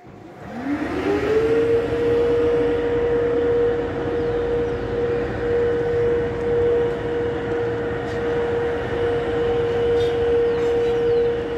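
A loud whine that winds up in pitch over about a second and a half, then holds one steady tone without a break.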